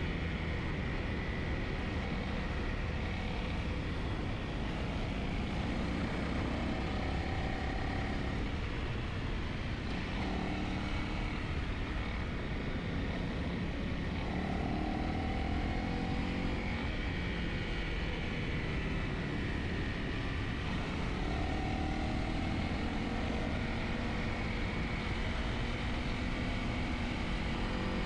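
Dual-sport motorcycle engine running at a steady road speed under wind rush, its engine note rising and falling with the throttle a few times.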